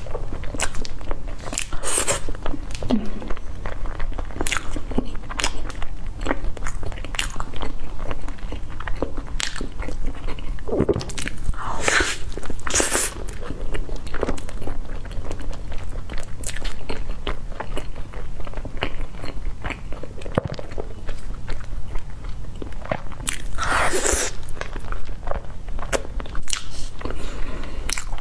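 Close-miked chewing and biting of a baked cheese-filled pastry: wet mouth sounds with constant small crackles, and a few louder crunches.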